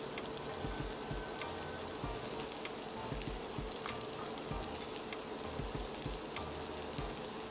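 Chicken and egg fry sizzling in a non-stick pan: a steady frying hiss peppered with small crackles and pops.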